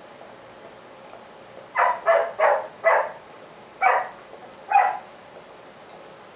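A dog giving six short barks, four in quick succession and then two more about a second apart.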